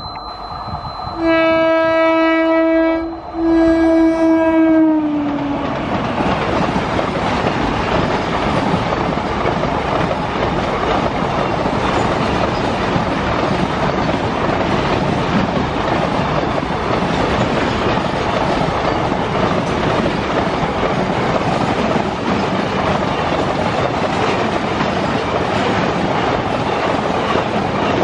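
Horn of a WAP-5 electric locomotive blowing two long blasts, the second dropping in pitch at its end as the locomotive passes. Then the steady rumble and wheel clatter of a long container freight train rolling past at speed.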